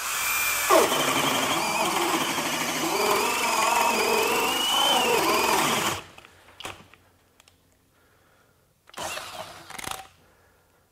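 FLEX 24V hammer drill in turbo mode, speed two, boring a 2 9/16-inch self-feed bit into a pressure-treated wooden post. The motor runs under heavy load for about six seconds and stops abruptly. A second brief run of about a second follows near nine seconds in.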